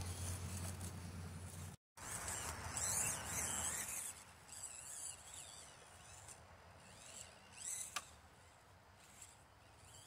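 Axial SCX24 micro crawler's small electric motor and gears whining as it crawls over rocks, broken by a moment of silence about two seconds in. After that it is quieter, with faint high chirps and a sharp tick near the end.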